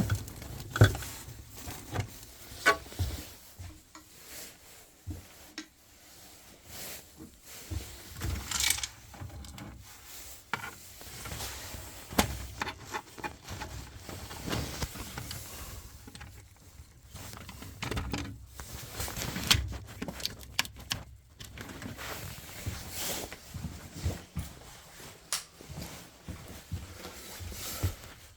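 Irregular clicks, taps and light knocks of hand work on a Ferroli Modena 80E boiler while a reconditioned control board is being fitted.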